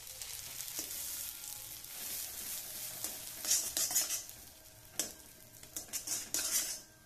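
Butter melting and sizzling in a hot metal kadhai, with a metal spatula scraping and clicking against the pan as it spreads the foaming butter. The sizzle is strongest in the middle and dies down over the last couple of seconds.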